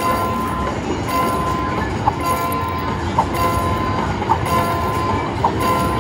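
Slot machine's train bonus sound effect from its speakers: a steady rumbling, clickety-clack train loop under a held tone, with a short pitched blip about once a second while the bonus total climbs.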